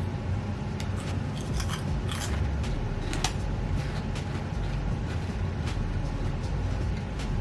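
Crunching and chewing of crispy cheese puffs, with short sharp crunches scattered about once a second.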